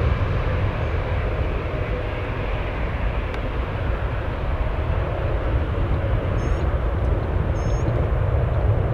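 Jet airliner engine noise: a loud, steady, deep sound that eases slightly a couple of seconds in and builds again toward the end. Three short high chirps sound over it in the second half.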